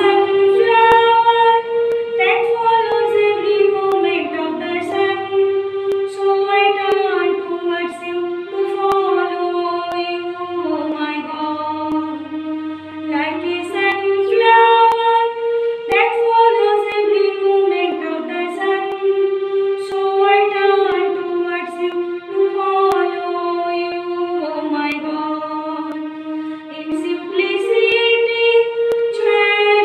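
A woman singing a prayer song solo, one voice in a slow melody held on long notes, the same phrase repeating about every 14 seconds.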